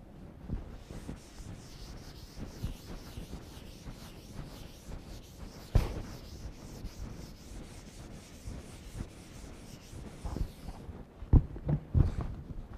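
Blackboard duster rubbing back and forth across a chalkboard, a steady scratchy hiss. There is a sharp knock about halfway through and a few more knocks near the end.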